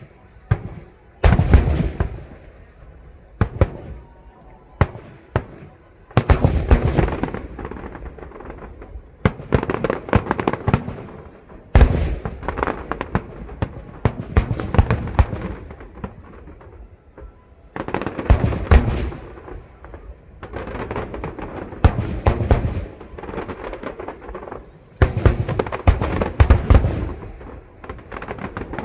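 Fireworks display: aerial shells bursting with loud bangs, each followed by dense crackling, coming in volleys every few seconds.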